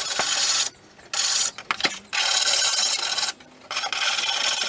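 Four long rasping strokes of an abrasive hand tool rubbed across a surface, with short pauses between strokes.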